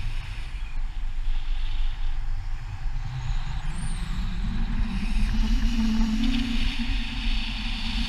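Wind buffeting the camera's microphone at the top of a tall mast: a loud rumbling that rises and falls, with a faint steady low hum beneath.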